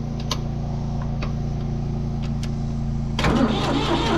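A tractor engine being cranked on starting fluid. A steady low drone runs throughout. About three seconds in, it turns louder and rougher as the engine begins to fire and sputter without yet running clean.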